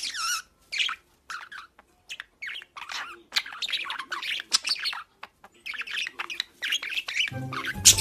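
Budgerigar chattering: a quick run of short, warbling chirps and squawks with brief gaps between them. Music comes in near the end.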